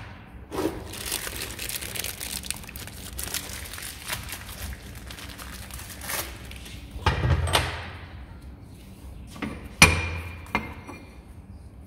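Crinkling of a plastic bag round a new wheel bearing, then a few heavy metal clunks as steel parts are set down on a hydraulic press bed, the sharpest about ten seconds in.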